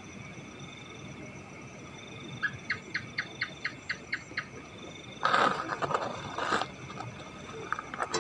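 Steady chirring of night insects, with a run of about ten quick, evenly spaced chirps, about five a second, a couple of seconds in. A louder, rough noise follows for about a second and a half, and there are a few sharp clicks near the end.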